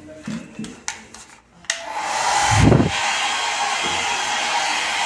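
A hair dryer switched on with a click about a second and a half in, then blowing steadily with a loud, even rush.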